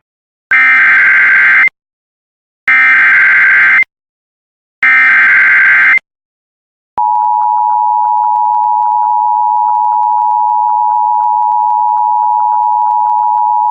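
Emergency Alert System tones: three screeching bursts of SAME header data, each about a second long and about a second apart. About seven seconds in, the steady two-tone EAS attention signal begins. These tones mark the start of a severe thunderstorm warning broadcast.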